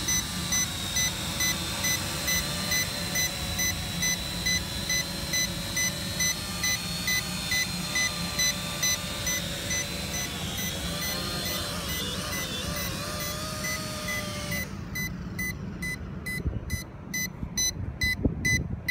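Small toy quadcopter drone: steady electronic beeping about twice a second over a whirring motor hum. The hum cuts off suddenly about fifteen seconds in while the beeping carries on.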